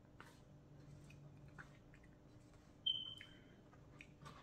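Fork scraping and clicking against a bowl in faint, scattered strokes as the last of the food is gathered up, with one short high squeak about three seconds in, the loudest sound.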